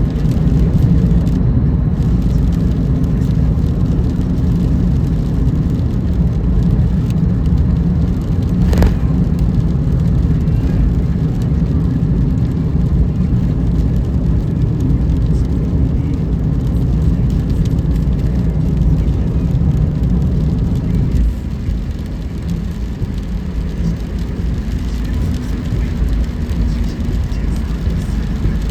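Car driving on rain-wet roads: a steady low rumble of road and engine noise that eases somewhat about three-quarters of the way through, with one sharp click about a third of the way in.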